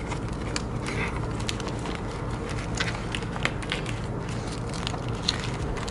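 Plastic sticker packets crinkling and rustling as hands leaf through a stack of them, with many irregular small crackles and clicks.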